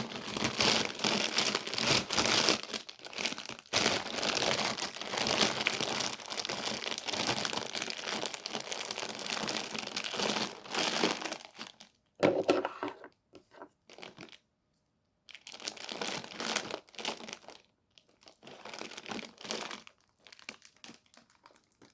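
Crinkling and crumpling, as of wrapper or plastic being handled close by. It runs almost without a break for about the first eleven seconds, then comes in shorter bursts with pauses.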